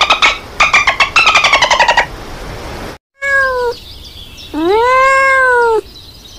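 Dolphin underwater sounds: rapid pulsed clicking squawks for about two seconds. Then a tabby domestic cat meows twice, a short falling meow and then a longer drawn-out meow that rises and falls.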